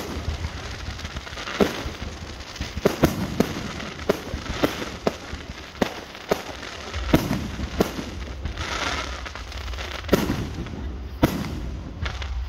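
Aerial fireworks display: shells bursting in an irregular run of sharp bangs, a dozen or more, some coming in quick pairs.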